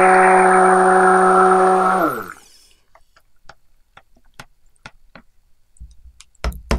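Stick blender running in a tub of soap batter with a steady motor hum, switched off about two seconds in and winding down in pitch. Then a few faint clicks and a sharper knock near the end.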